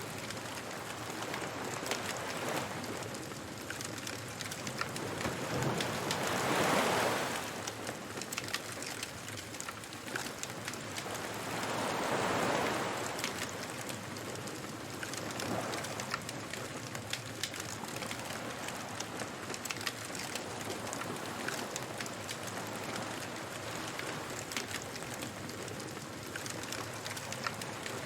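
Beach bonfire ambience: a wood fire crackling steadily, with waves washing ashore in slow swells, the loudest about seven seconds in and another about twelve seconds in.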